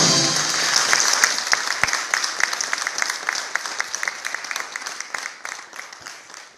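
Audience applauding, many hands clapping, gradually fading away toward the end.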